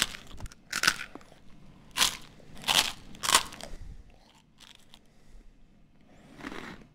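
Short, dry crunching noises from an animation soundtrack: four louder ones in the first three and a half seconds, then fainter scratching that dies away.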